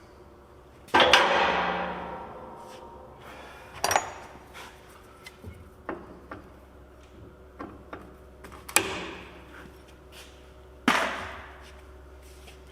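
Hammer blows on metal: four loud strikes with a ringing decay, about a second, four seconds, nine seconds and eleven seconds in, with lighter taps and clinks between.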